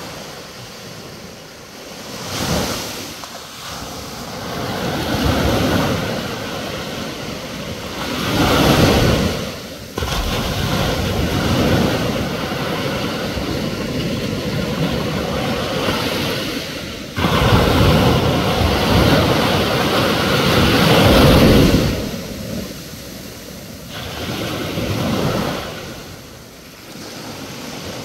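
Small ocean waves breaking and washing up on a beach, the surf swelling and falling every few seconds. The loudness jumps suddenly twice, about ten and seventeen seconds in, where the recording is cut.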